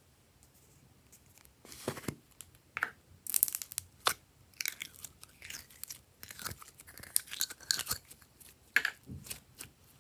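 Glossy slime being worked and squished by hand, giving irregular sticky crackles and pops that start about a second and a half in and stop just before the end.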